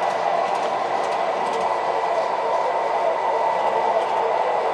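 MTH Proto-Sound 3 O-gauge model streetcars running on three-rail track: a steady whirring of motors and wheels with a faint high whine.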